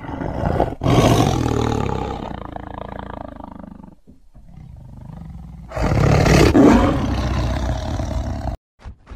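Tiger roaring twice in long, rough calls. The second roar cuts off suddenly near the end.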